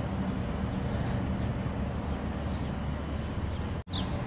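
Outdoor background noise: a steady low rumble, with a few faint, short chirps that fall in pitch. The sound cuts out for an instant near the end.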